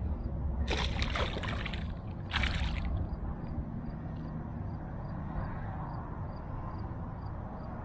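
Water splashing in two short bursts, one about a second in and a briefer one near three seconds, followed by a low steady rumble.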